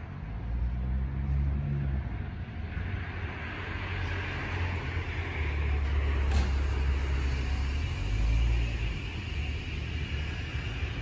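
Shin-Keisei 8800-series electric train starting off and pulling away, with a low rumble from the wheels and running gear and a whine from its traction motors. A single click sounds about halfway through.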